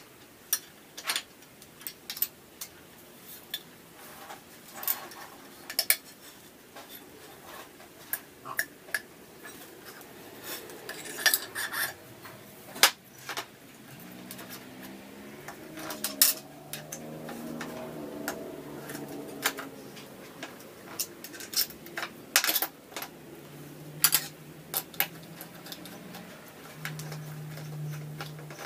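Stunt-scooter parts and hand tools clinking and clicking against metal as the scooter is taken apart and reassembled: irregular sharp clinks, some in quick clusters. A faint low hum comes in during the second half.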